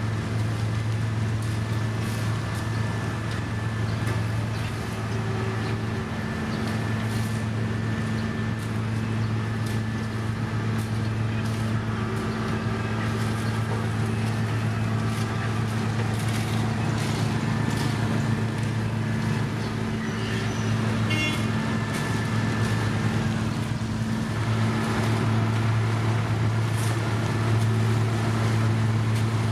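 Diesel engines of road-paving machinery running steadily, a constant low drone with scattered light knocks.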